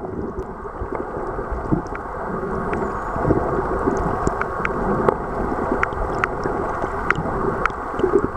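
Underwater recording near a dolphin pod: a steady muffled water rush with scattered sharp clicks and one faint high whistle about three seconds in.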